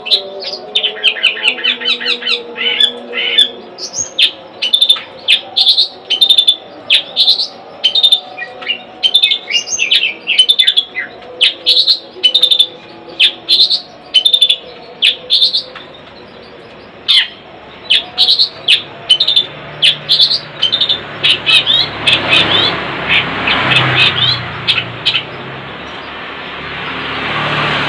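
Long-tailed shrike (cendet) singing: a fast, busy run of sharp chirps and short repeated notes. In the last few seconds the song thins out and a low hum and rushing noise swell up underneath.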